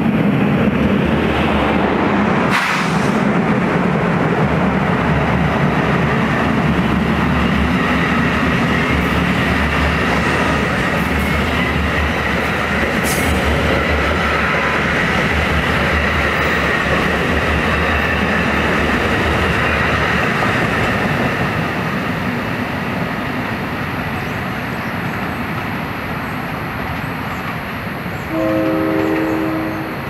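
NJ Transit commuter train of bilevel coaches passing close at speed: a loud, steady rumble of wheels on rail with a sharp clack a few seconds in, fading as the train runs away. Near the end a train horn sounds one short multi-note blast.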